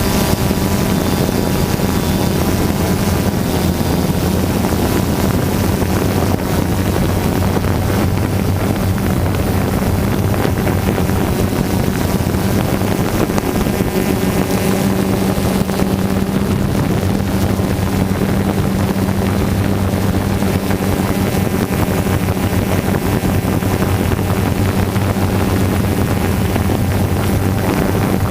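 DJI Phantom 2 quadcopter's motors and propellers giving a steady, even hum, with wind rushing over the drone's microphone.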